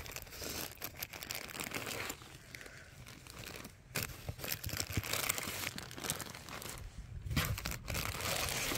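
Plastic bags of lily bulbs crinkling and rustling as they are handled and lifted out of a cardboard box, with many small uneven crackles.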